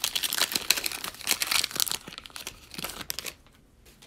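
The wrapper of a Panini Prizm trading-card pack is torn open by hand and crinkled. The crinkling is densest in the first two seconds and trails off after about three seconds.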